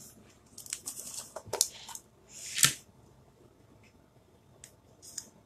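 Light rustling and scraping of hands handling craft supplies on a tabletop, with a few sharp clicks and a louder swish about two and a half seconds in, then only faint ticks.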